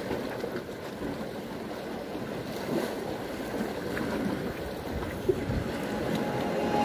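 Wind buffeting the microphone over a steady wash of sea surf.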